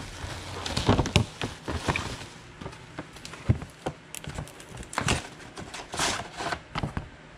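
Parts packaging being opened and handled by hand: irregular crinkling, rustling and small knocks, the loudest about a second in and again about three and a half seconds in.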